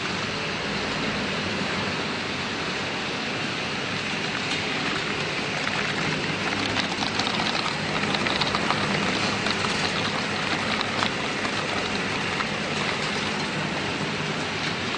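Puffed-snack production line with a twin-screw food extruder running: a steady mechanical din of motors and conveyors. Between about six and eleven seconds in, a patter of light clicks rides on it, as puffed snacks drop from the extruder's cutter into a cardboard box.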